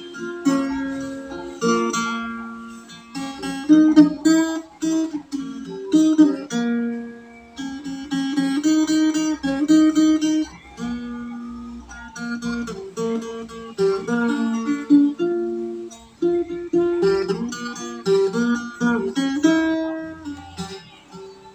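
Small-bodied acoustic guitar played solo, a picked melody of single notes over bass notes, mixed with some strummed chords.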